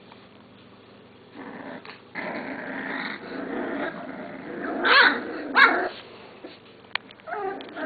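Boxer puppies play-fighting: after a quiet moment, a run of small puppy growls, then two loud, short yelps about five seconds in, and a few softer squeaks near the end.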